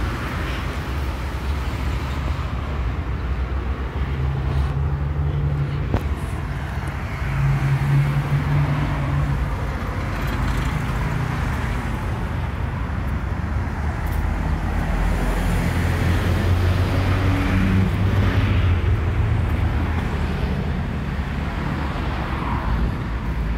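Street traffic: vehicle engines running and passing, a steady low rumble with engine hums that rise and fade as vehicles go by.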